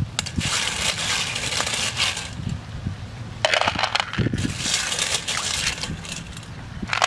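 Small shellfish being rubbed and stirred by hand in a stainless steel bowl, their shells clattering and grinding against each other and the metal in repeated spells.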